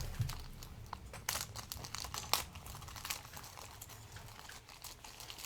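Plastic wrapping crinkling and crackling as it is handled and opened, in scattered small crackles with a couple of sharper ones about a second and two seconds in.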